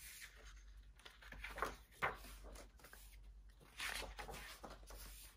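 Pages of a paper coloring book being turned by hand: a few soft paper swishes and rustles.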